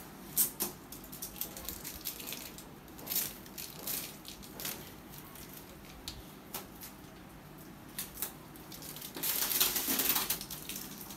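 Plastic packing film around a new air-conditioner indoor unit crinkling and rustling as it is handled during unpacking, with scattered crackles and a louder stretch of crinkling near the end.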